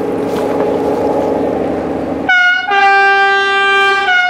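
A locomotive's engine running steadily, then about two seconds in a two-tone train horn sounds loudly for about two seconds. The higher note starts alone, the lower note joins it, and it ends on the higher note again.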